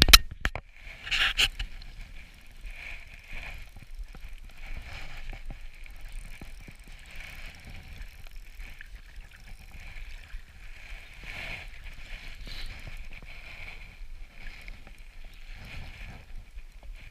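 Lake water sloshing and lapping close by, swelling every second or so, with two sharp knocks at the start and about a second in.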